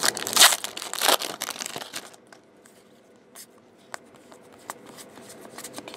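Foil wrapper of a baseball card pack crinkling and tearing open for about the first two seconds, then the cards being thumbed through, with faint sliding and small clicks.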